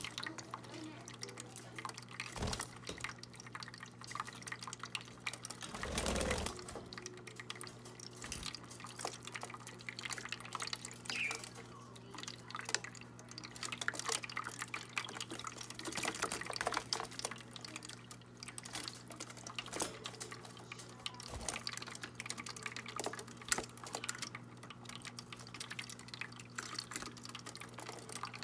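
Small electric bird-bath water fountain running: a steady low pump hum under continuous trickling and dripping water.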